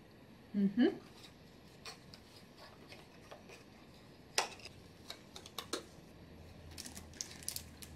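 Scattered light clicks and taps of small cosmetic bottles and packages being handled and set down, with a sharper click about four and a half seconds in and a run of clicks after it. A short hum from a woman's voice just before the first second.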